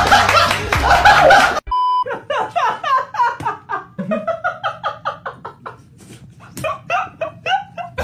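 Young men laughing: a loud burst of hearty laughter, cut by a short electronic beep, then one man's high-pitched staccato laughter in rapid short bursts, about three or four a second.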